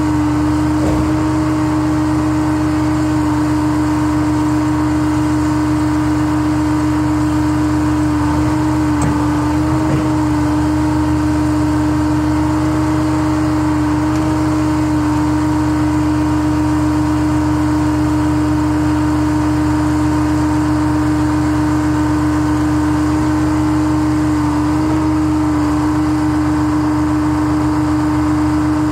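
Gradall telescoping-boom excavator running steadily while it digs, a constant mechanical drone over a low engine rumble. The pitch sags slightly a few times as the hydraulics take load moving the boom and bucket.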